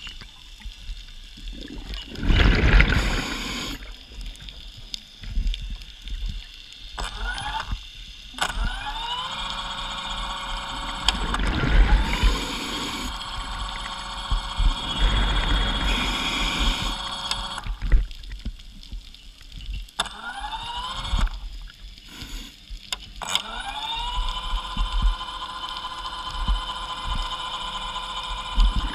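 Diver propulsion vehicle (underwater scooter) motor heard underwater, whining up in pitch several times and then holding a steady tone as it drives through the water. Noisy rushes of bubbling break in now and then over a low rumble.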